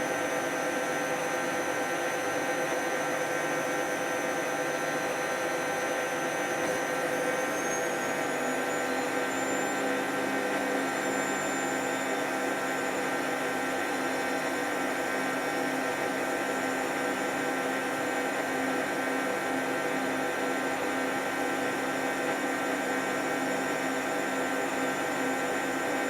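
Hoover 10 kg washing machine spinning at 1400 rpm: a steady motor whine and drum hum, the high whine rising slightly in pitch about eight seconds in.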